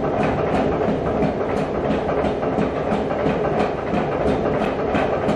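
Power hammer striking a red-hot damascus shotgun barrel tube in fast, even blows, about three a second, over the steady clatter of the running machine. The tube is being forged down to a smaller diameter.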